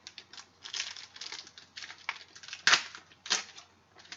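Football trading cards being handled on a table: an irregular run of short taps and rustles as cards are pulled, shuffled and set down, the loudest tap about two and a half seconds in.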